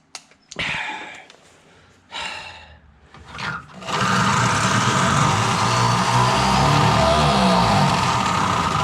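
A few clicks and brief handling noises, then about four seconds in an electric drill with a keyless chuck starts and runs steadily and loudly for about five seconds.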